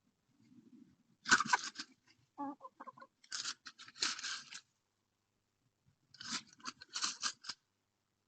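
Chickens foraging, scratching and pecking at the ground in three bursts of rustling clicks, with a brief cluck between the first two bursts.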